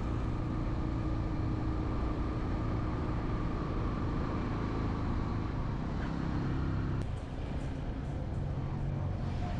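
Road traffic: a motor vehicle's engine running steadily close by. The sound changes abruptly about seven seconds in.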